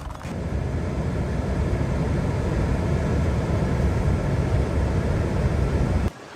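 Strong wind blowing across the microphone, a steady low rumble with a hiss over it, cutting off abruptly near the end.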